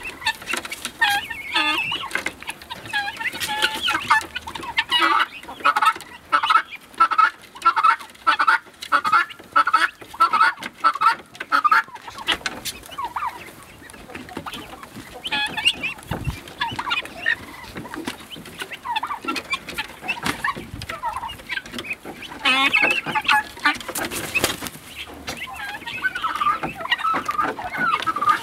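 A flock of domestic helmeted guineafowl calling. For several seconds the calls come in a steady run of about two a second. After that the flock is quieter with scattered calls, and it grows busier again near the end.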